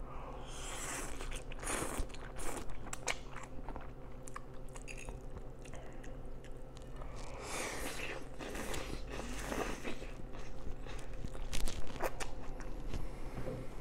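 Close-up mouth sounds of a person eating instant noodles: several noisy bursts of slurping strands, with chewing between them.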